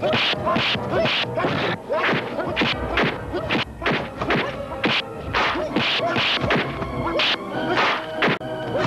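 Dubbed fight sound effects: punch and block whacks in quick succession, several a second, over background music.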